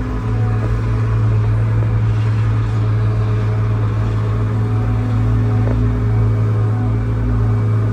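Large excavator's diesel engine running steadily under work, a constant low drone with faint steady hydraulic tones above it, getting slightly louder about half a second in.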